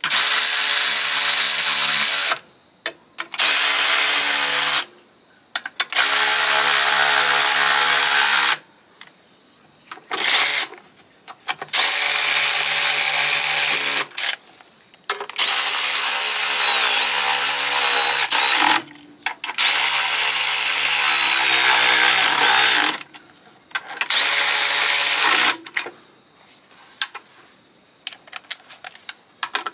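Cordless electric ratchet running bolts down on a sheet-metal box lid in about eight short runs of one to three seconds, with pauses between them. The motor's steady whine dips in pitch near the end of a couple of runs.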